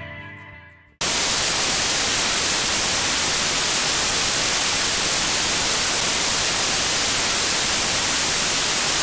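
The tail of a guitar music track fades out, then about a second in loud, steady TV static hiss cuts in abruptly and holds.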